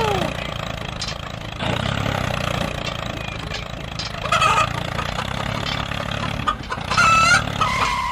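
A chicken clucking a few short times, mostly in the second half, over a low, steady tractor-engine rumble that swells and eases.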